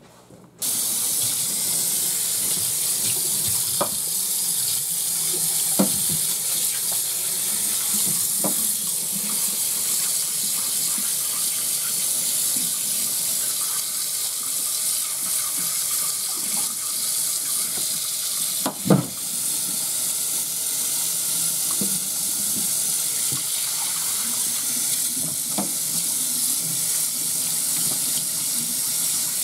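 Sink tap turned on about half a second in and running steadily while a gutted trout is rinsed out under it. A few light knocks sound through the water, with one louder knock about 19 seconds in.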